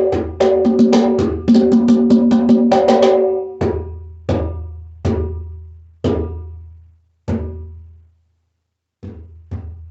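Bougarabou drum with a cowhide head being played: a quick run of strokes with a ringing tone, then single strokes spaced well apart with a deep bass ring after each. There is a pause of about a second near the end, then softer strokes.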